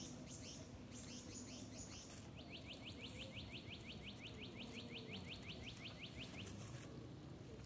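A bird calling high-pitched: a run of quick descending notes, about four a second, until about two seconds in, then a long, even trill of about six notes a second lasting some four seconds.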